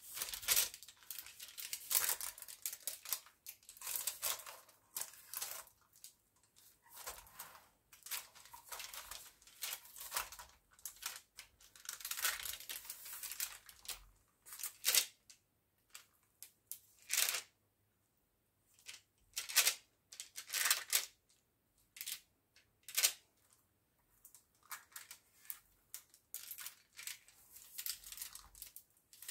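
A metal spoon spreading seed crispbread dough thin over baking paper on a baking tray: irregular scraping strokes with the paper rustling, broken by a few short pauses.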